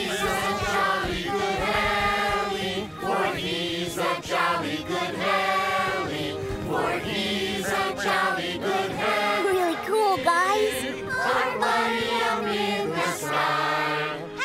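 A group of voices singing a birthday song together, with musical accompaniment.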